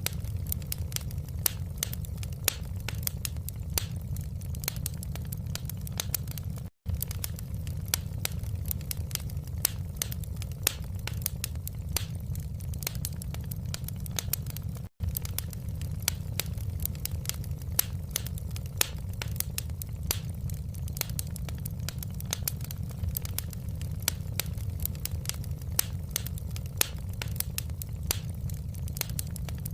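Wood fire crackling: frequent sharp pops and snaps at irregular intervals over a steady low rumble of the burning fire. The sound cuts out for an instant twice, about 7 and 15 seconds in.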